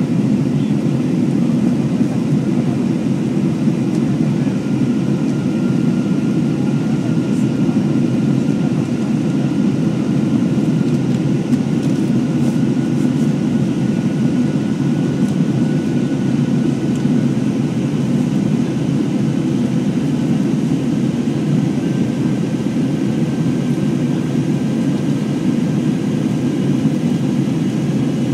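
Jet airliner cabin noise during the climb after take-off: the steady low rush of the engines and airflow heard from inside the cabin, with a faint high whine running through it.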